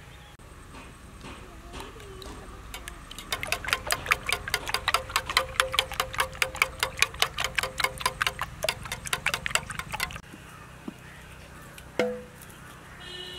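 Eggs being beaten by hand with a metal utensil in a steel bowl: a quick, even run of clicking strokes, about five a second, starting a few seconds in and stopping after about seven seconds. A single sharp knock near the end.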